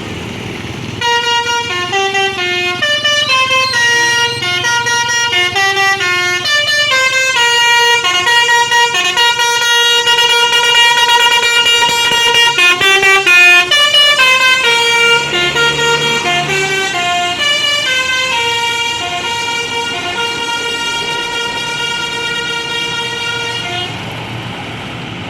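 Basuri telolet musical horn on a bus playing a long tune of stepped notes, starting about a second in and cutting off near the end, over a low engine hum.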